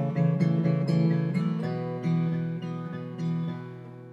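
Background music: acoustic guitar playing plucked notes, fading toward the end.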